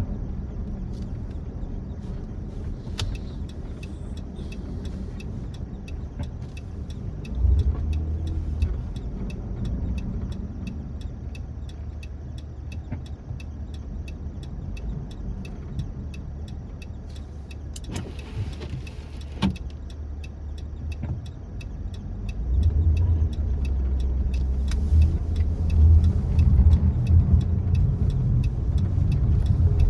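Car driving, a steady low road and engine rumble that grows louder in the last several seconds, with a faint, evenly spaced ticking throughout.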